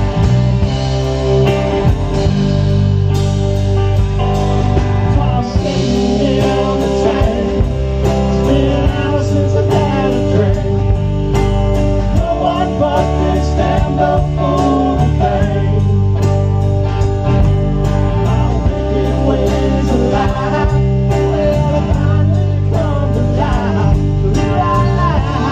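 Live country-rock band playing: electric guitars, bass guitar and a drum kit keeping a steady beat, with a male lead vocal singing over them.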